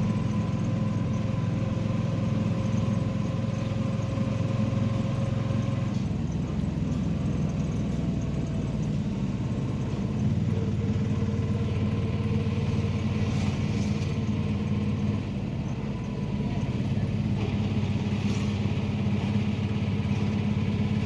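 Tuk-tuk (auto-rickshaw) engine running steadily on the move, its pitch shifting a few times as it changes speed.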